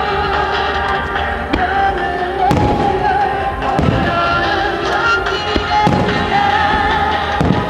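Starmine fireworks bursting, a deep bang every second or two, over music with a clear melody playing throughout.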